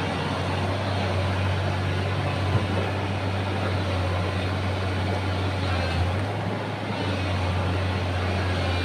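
Excavator's diesel engine running steadily under work, a constant low drone, with a short knock about two and a half seconds in.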